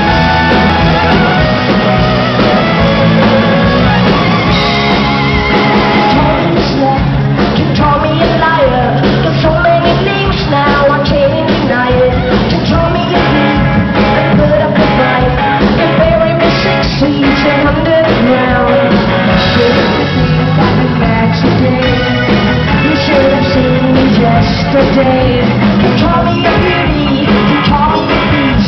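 Live rock band playing loudly with a lead singer: drums, bass and guitars with sung vocals throughout.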